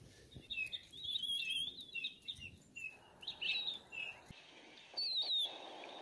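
Small songbirds calling: a run of short, wavering high chirps over the first four seconds, then after a brief gap one more wavering call near the end.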